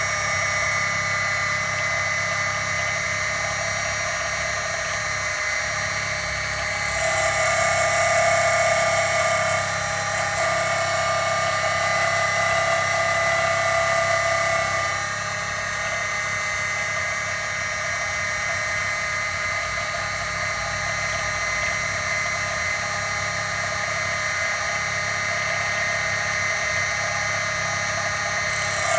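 Mini lathe's small electric motor running steadily with a whine, spinning a wooden dowel as the cutting tool is fed into it. It runs louder from about seven to fifteen seconds in.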